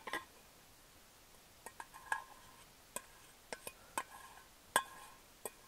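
Faint, scattered clinks of a small stainless steel bowl knocking against the rim of a large stainless steel mixing bowl as beaten eggs are emptied out. There are about nine light metal clinks at uneven intervals, each ringing briefly.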